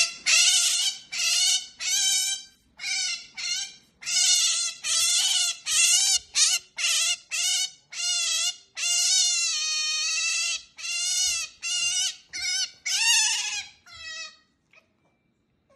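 Pet otter giving a rapid string of loud, high-pitched squeaky calls while eating, its "nomnom noise". The calls are mostly short, with one longer held call about nine seconds in, and they fade away near the end.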